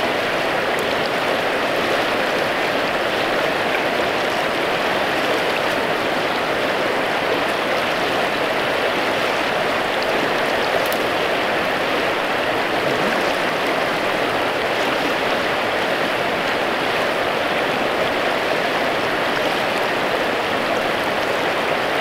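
Small river flowing: a steady rush of water with no change.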